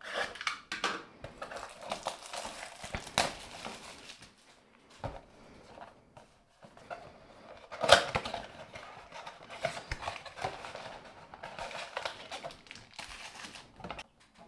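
Cellophane shrink-wrap on a cardboard trading-card blaster box being slit and peeled off with crinkling and crackling, then the cardboard flaps opened and foil-wrapped card packs slid out, with a sharper rustle about eight seconds in.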